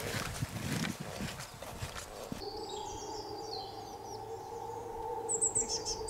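Footsteps and clothing rustle of people walking over grass. About two seconds in, small birds start chirping and trilling in the woodland, with a quick run of high chirps near the end.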